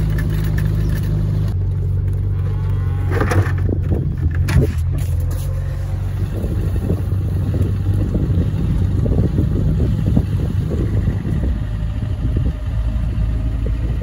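Chevy pickup truck engine running steadily at low speed, with a few short louder sounds about three to five seconds in.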